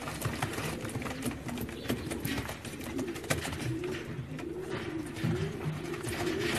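Several domestic pigeons cooing together, low warbling coos overlapping one another, with scattered light clicks among them.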